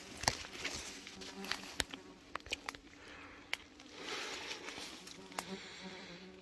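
A flying insect buzzing with a steady low hum, over scattered sharp clicks and rustles of leaves and twigs being brushed. The rustling swells about four seconds in.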